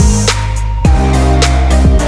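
Background music: a hip-hop/R&B style beat with deep bass and steady drum hits; the drums drop out for a moment near the start and come back a little under a second in.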